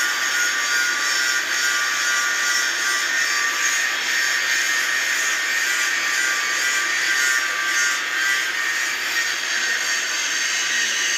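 Handheld angle grinder grinding a 37.5° weld bevel on the end of a steel pipe, the disc running steadily against the metal with a high whine.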